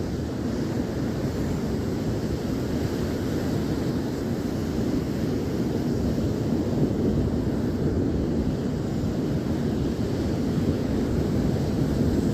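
Ocean surf with wind buffeting the microphone: a steady low rumble with no distinct waves breaking.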